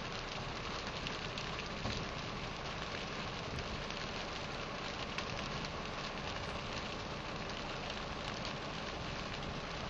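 Steady rush of whitewater pouring over McDonald Falls on McDonald Creek.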